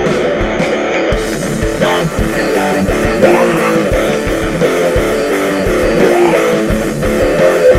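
Rock music with electric guitar and bass over a steady beat.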